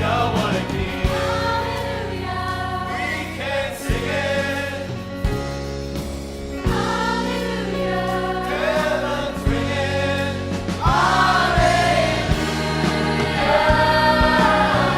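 Choir singing a gospel Christmas song over instrumental accompaniment with a steady beat.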